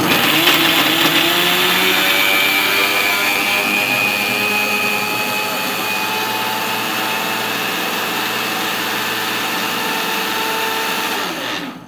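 Electric mixer grinder (Preethi) running at high speed, grinding bread pieces into crumbs in its stainless steel jar. It starts abruptly, rises briefly in pitch as it spins up, runs steadily and cuts off near the end.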